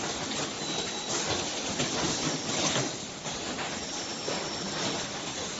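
Automated pouch-cell assembly machinery running: a steady hiss with frequent clicks and clattering knocks.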